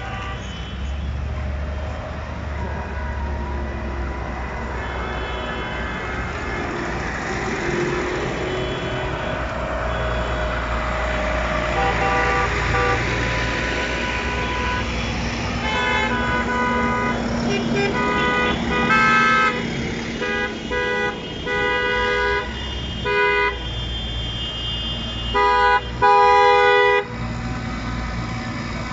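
A convoy of tractors driving past with their diesel engines running. From about halfway through, vehicle horns honk again and again in short blasts, with a longer, louder blast near the end.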